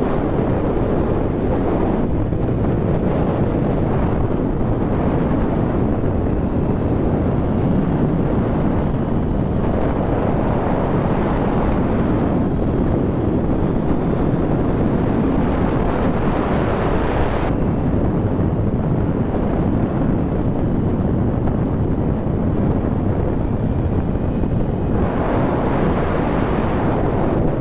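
Wind rushing over the microphone of a moving motorcycle, with the Kawasaki Z1000's inline-four engine and road noise underneath. The rush thins and swells every several seconds as the speed changes.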